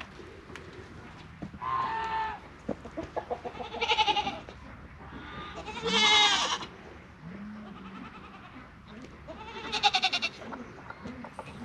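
Goats bleating about four times, each call a separate pitched cry, two of them quavering.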